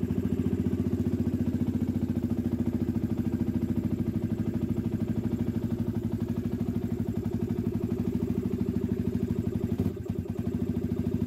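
Yamaha WR125X's single-cylinder four-stroke engine idling steadily with a rapid, even putter, then cutting off suddenly at the end.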